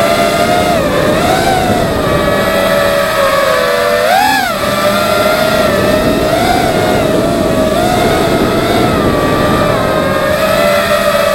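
Racing quadcopter's brushless motors and propellers whining steadily, the pitch wavering with the throttle and surging sharply up and back down about four seconds in.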